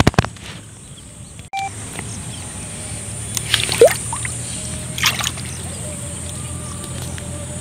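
Water splashing and sloshing as a fine monofilament gill net holding small fish is worked by hand in shallow muddy water. There are sharp knocks right at the start and a short rising squeak about four seconds in.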